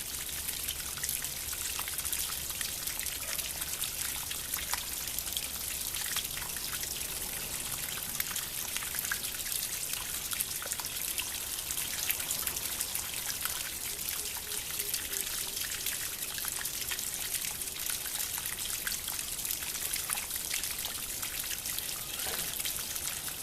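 Bamboo water fountain trickling steadily, with a constant patter of small drops and splashes.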